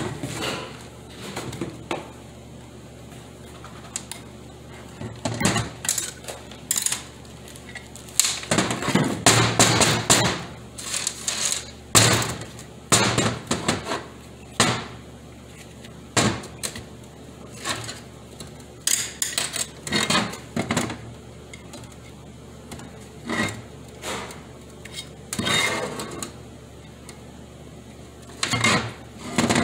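Metal parts of a 4T40E automatic transmission clanking and clattering on a workbench as it is taken apart, including its aluminum valve body. The clatter comes in irregular spells with quieter gaps between.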